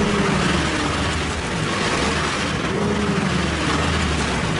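Pickup truck engine revving up and back down twice, with the hiss of its tyres spinning on a wet, slippery skid pan. The wheels are spinning without grip: the truck is too light over its driven rear wheels to get traction.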